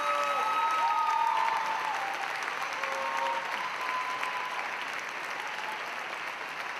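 Theatre audience applauding, a steady mass of hand claps.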